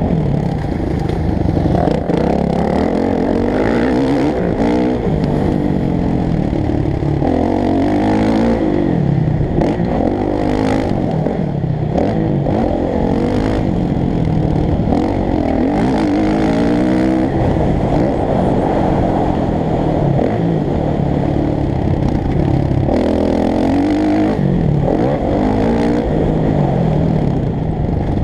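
Motocross dirt bike engine heard close up from on the bike, revving hard and dropping back over and over as the rider accelerates, shifts and slows for the track's turns.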